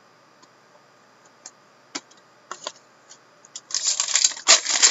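Trading cards being handled, with a few light clicks and taps. About three and a half seconds in, a card pack's wrapper is crinkled and torn open in a burst of crackling.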